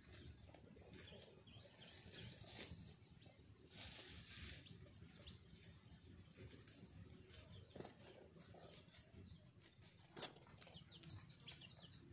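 Faint outdoor quiet with birds chirping, including a quick run of short, falling chirps near the end, and a few brief rustles.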